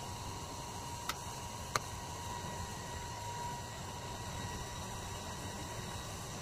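Steady background hiss with a faint high steady whine, broken by two light clicks about a second and just under two seconds in as the vinyl-wrapped part is handled.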